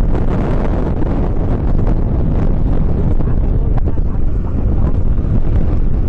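Wind buffeting the microphone over the steady running of a Kubota DC70 rice combine harvester working the field.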